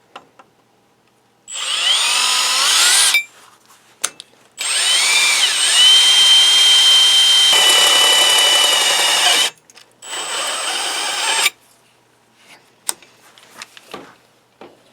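Makita brushless cordless drill, fitted with a bimetal hole saw, running in three bursts: a short one, a long one of about five seconds, and a short one near the end. Each starts with a rising whine as the motor spins up.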